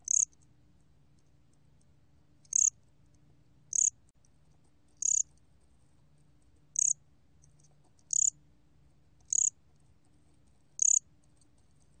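곰귀뚜라미 cricket calling at 23 °C: eight short, high-pitched chirps, spaced unevenly one to two and a half seconds apart.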